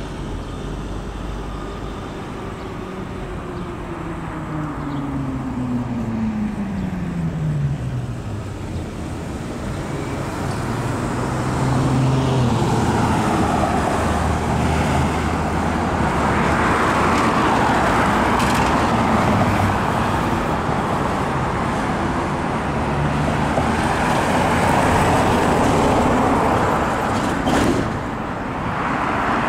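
Road traffic passing. In the first several seconds one vehicle's tone drops steadily in pitch as it goes by; then the rushing tyre and engine noise of passing cars swells and stays loud, dipping briefly near the end.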